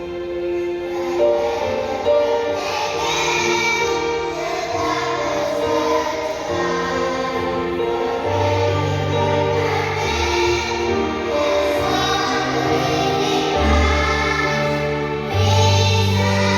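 A choir singing a piece in held notes that move step by step, with deep sustained low notes joining about eight seconds in.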